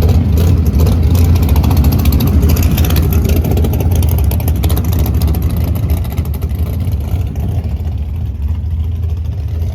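A vehicle engine running loudly with a heavy low rumble and rapid firing pulses, easing off somewhat about six seconds in.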